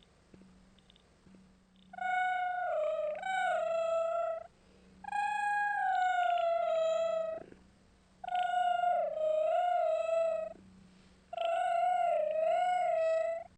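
A cat giving four long, drawn-out meows, each one to two and a half seconds long with short pauses between. Its pitch wavers and sags toward the end of each call.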